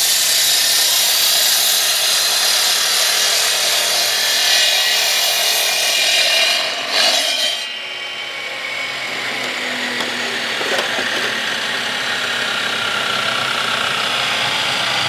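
Power saw cutting through a concrete masonry block, running with a steady high grinding whine; about seven seconds in the sound changes briefly and drops a little in level, then carries on steadily.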